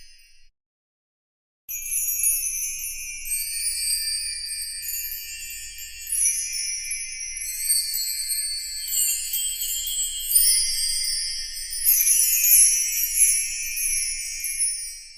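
A jingling, twinkling bell-and-chime sound effect: many overlapping high bell tones shimmer together, starting about two seconds in and fading out near the end.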